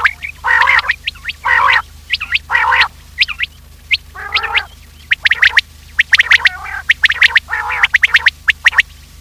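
Common quail calling: rasping, throaty notes about once a second, mixed with many sharp, quick high chirps, the kind of call track used to lure quails.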